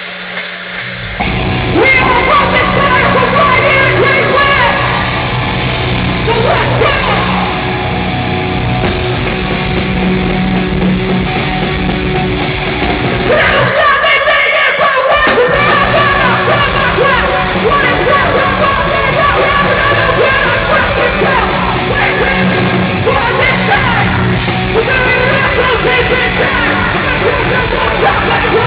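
A metal band playing live, with heavy guitars, bass and drums under screamed vocals, in a thin recording with no highs. The low end drops out briefly about halfway through before the full band comes back in.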